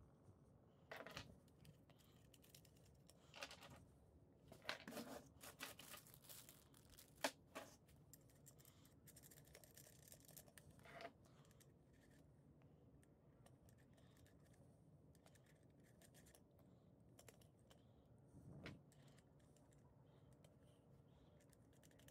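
Mostly near silence, with faint handling noises of small brass air fittings and a gauge-and-regulator assembly being turned and fitted together by hand: scattered light clicks and rustles in the first half, the sharpest click about seven seconds in, and one more a little before the end.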